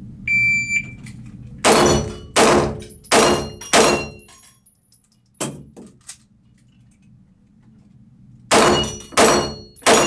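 Shot-timer start beep, then a string of pistol shots echoing off concrete walls: four quick shots about two-thirds of a second apart, a single shot, and after a pause three more. Thin metallic ringing from struck steel plates follows several of the shots.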